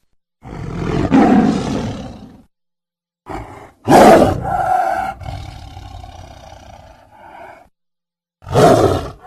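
Tiger roaring in four separate calls: one about a second in, a short one near three seconds, a loud roar at about four seconds that fades out over some three seconds, and another loud roar near the end.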